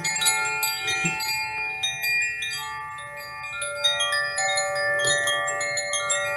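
Handheld cylindrical wooden chime, tilted and turned so the tuned rods inside strike and ring: many overlapping bright notes, with fresh ones struck several times a second and ringing on.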